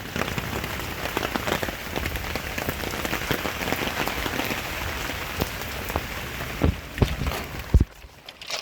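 Rain falling on hard surfaces: a dense patter of drops during a storm. A few low thumps stand out near the end.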